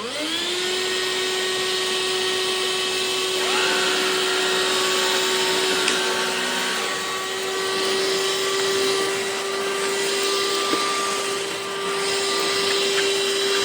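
Craftsman V20 cordless stick vacuum switching on: its motor spins up with a quick rising whine and settles into a steady hum. About three and a half seconds in, a second set of whining tones rises and joins it, and it runs on steadily.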